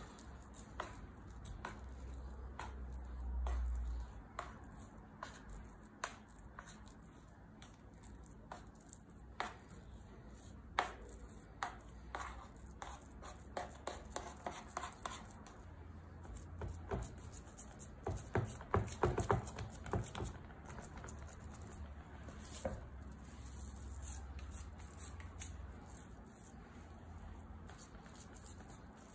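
A flat spatula scraping and tapping against a metal baking tray as date paste is spread, along with the soft rubbing of hands pressing dough. Scattered light clicks and taps come throughout, thickest in a quick run about two-thirds of the way in.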